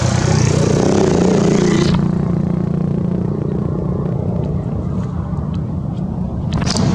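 Steady low rumble of a motor vehicle engine running, with a hiss that drops away about two seconds in and returns near the end.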